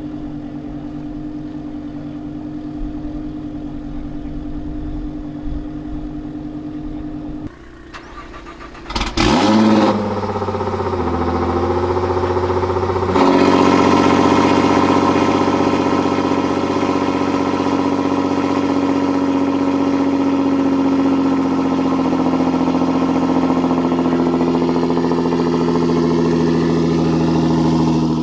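Straight-piped exhaust of a tuned Nissan GT-R R35's twin-turbo V6, idling steadily. About nine seconds in the engine is started: it catches with a sharp flare, the revs sweep up and fall back. From about thirteen seconds it settles into a louder, steady idle.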